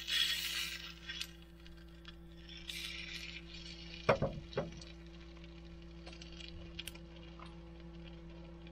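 Fried egg sizzling in a small frying pan on a gas hob, dying away within the first second. About four seconds in come two sharp knocks of a nylon spatula against the pan, then a few faint clicks, over a steady low hum.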